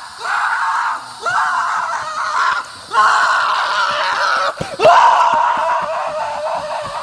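A person screaming in fright: several long, high screams one after another with short breaks between them, the last and loudest starting near the middle.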